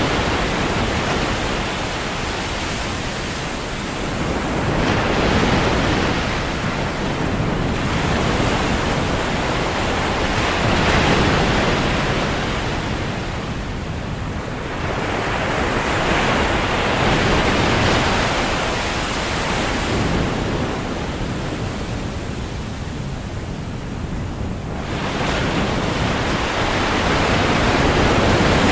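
Ocean surf: waves breaking and washing up a sandy beach, a steady rush that swells and fades every five or six seconds.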